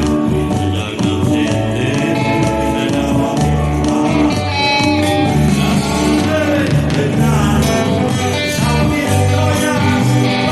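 Live band playing an old Indonesian pop song, with guitar, bass and a steady drum beat.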